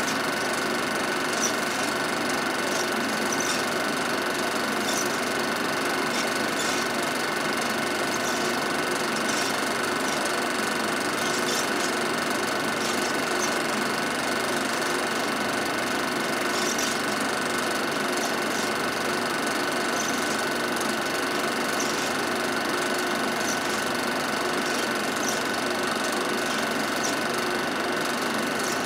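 Film projector running: a steady mechanical whir and clatter with faint light ticks every second or two.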